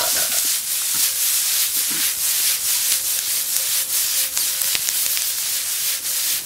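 Diced squash, onions and garlic sizzling hard in a hot skillet, a dense hiss peppered with crackling pops as the pan is lifted and tossed.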